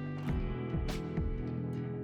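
Background music: layered sustained tones over a steady beat of sharp percussive hits, with plucked-guitar sounds.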